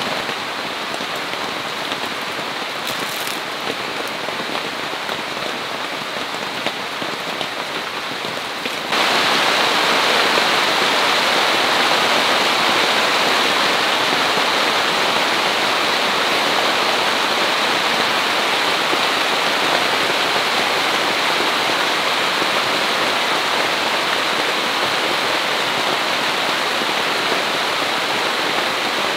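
Steady rain falling, an even hiss of many drops; about nine seconds in it becomes suddenly louder and brighter, then holds steady.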